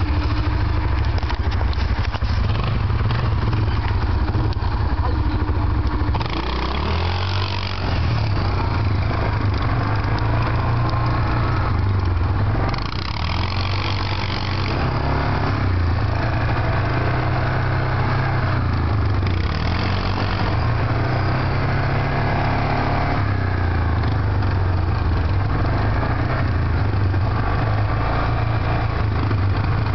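Yamaha 450 quad's single-cylinder four-stroke engine running under way, its pitch rising and falling again and again as the rider works the throttle.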